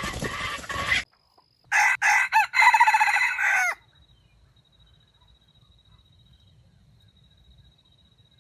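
A rooster crows once, a loud cock-a-doodle-doo lasting about two seconds and starting just under two seconds in. Before it, a rough noisy sound cuts off suddenly about a second in.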